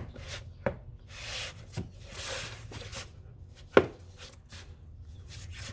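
Plastic engine cover being fitted back on and pressed down onto its mounting pins: scattered plastic knocks and clicks, a scraping rub about a second and a half in, and one sharp knock a little before four seconds in.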